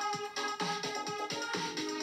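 Electronic dance music with a quick steady beat of falling bass hits, played through a mid-range car speaker under test; the deepest bass is almost absent.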